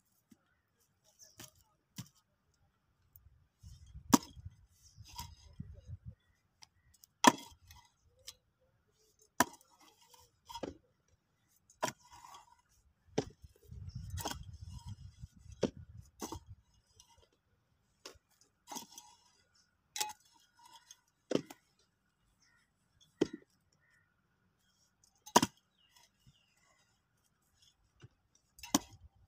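Broad-bladed hoe chopping into dry, hard earth: sharp strikes every one to two seconds, about fifteen in all. Two spells of low rumble come in under the strikes.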